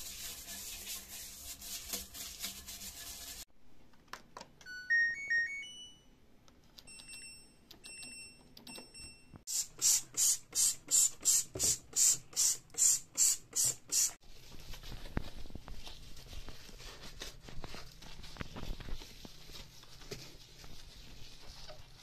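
A toilet brush scrubbing the bowl. Next comes a short run of electronic beeps at different pitches, then a trigger spray bottle squirting about fifteen times, roughly three squirts a second, and then a steady rush of tap water running into a bathroom sink.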